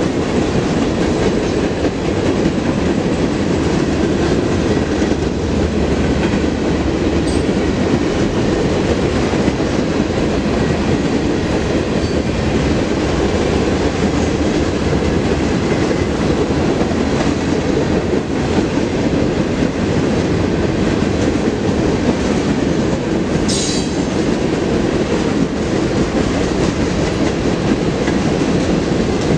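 Intermodal freight train rolling steadily past: a continuous rumble of steel wheels on rail with clickety-clack over the rail joints. A brief high wheel squeal comes about 24 seconds in.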